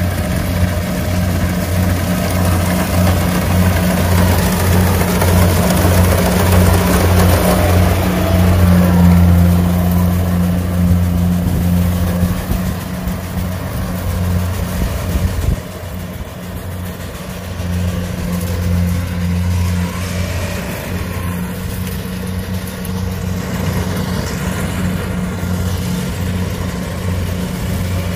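Kubota combine harvester running steadily as it harvests rice, a low engine hum that is louder in the first half and drops abruptly about halfway through.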